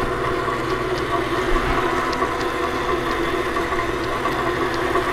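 Sound-art installation giving a steady droning hum of several held tones, with faint light ticks scattered through it.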